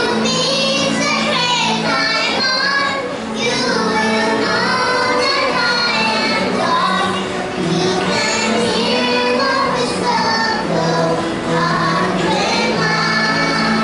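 A group of young children singing a song together into a microphone, over instrumental accompaniment with steady low notes.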